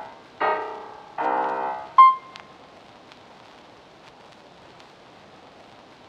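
Piano music ending on two chords, closed by a single bright ping about two seconds in. After that there is only a faint steady hiss of fountain water.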